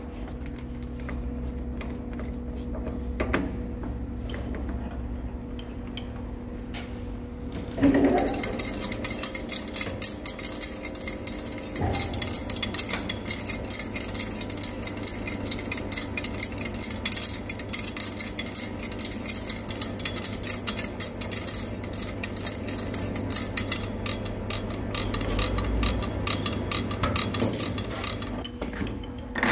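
Centre lathe running with a steel hydraulic cylinder barrel spinning in it, then from about eight seconds in a centre drill in the tailstock chuck cuts into the barrel's end face. The cut makes a dense rapid crackle with a thin high whine over it and stops just before the end.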